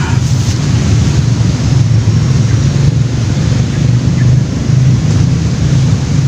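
A loud, steady low rumble throughout, with no clear rhythm or change.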